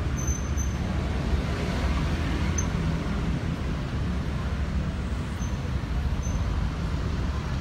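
Steady low rumble of street traffic and motor engines, with a few brief faint high chirps.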